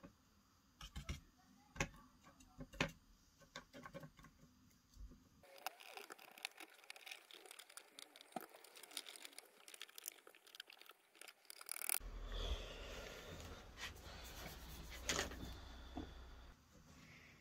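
Faint scratchy scrubbing and sharp little taps of a paintbrush working weathering powder onto a model steam locomotive and its board. A low hum comes in about twelve seconds in.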